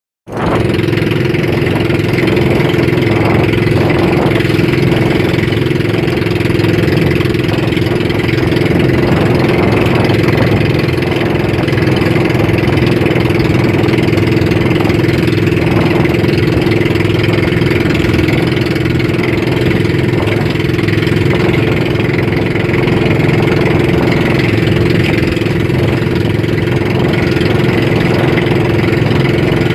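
Small outrigger boat's engine running steadily at a constant pitch while the boat is underway, with water splashing along the hull.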